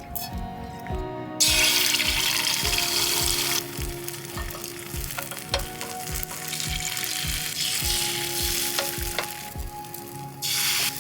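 Food sizzling as it fries in a hot pan. The sizzle starts about a second and a half in, is loudest just after, and swells again near the end. A background music track with a steady beat plays under it.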